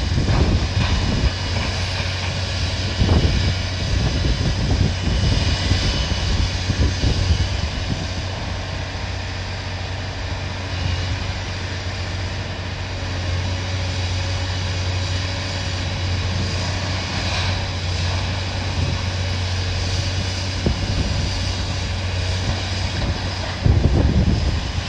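Wind buffeting the microphone, with gusts near the start and near the end, over the steady low engine drone of demolition machinery working on a building.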